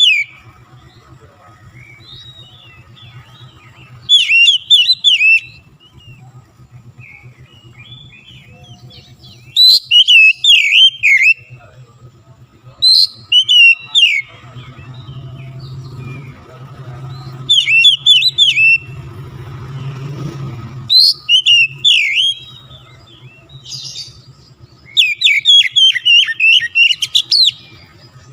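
Oriental magpie-robin in full song: six loud bursts of quick, varied whistles and trills, each lasting one to three seconds and a few seconds apart, over a faint low hum.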